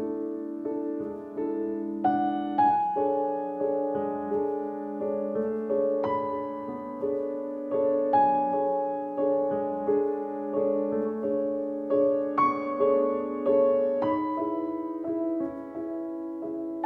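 Background music: a slow piano piece, single notes and chords struck and left to ring.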